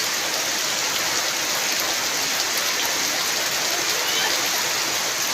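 Heavy rain pouring down: a steady, even hiss of rain on surfaces.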